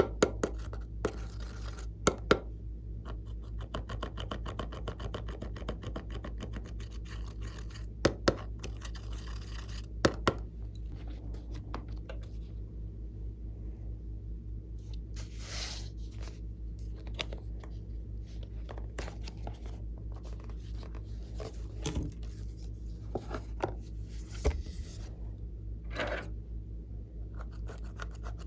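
Glossy slime being mixed and worked by hand: irregular sticky clicks, small pops and scraping, with a few louder snaps, over a steady low hum.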